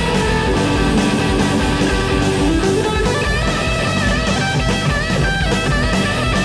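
Rock band playing an instrumental passage of the song: electric guitar over bass and drums, heard from a 1989 cassette demo recording.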